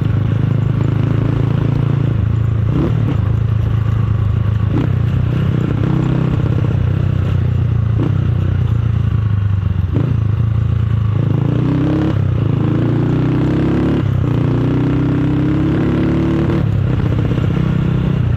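Motorcycle with a loud aftermarket exhaust running steadily while being ridden, with a few short knocks along the way and a pitch that wavers up and down in the second half.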